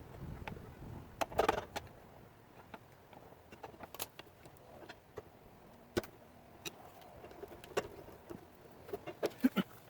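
Sharp screwdriver scraping and clicking against the remains of a broken drain plug as it is picked out of an Atwood water heater's threaded drain opening. Scattered taps and scrapes, with a short flurry about a second and a half in and a quick run of clicks near the end.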